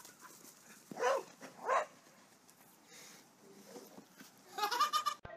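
Corgi barking excitedly in play: two short barks about a second in and a little over half a second apart, then a louder burst near the end.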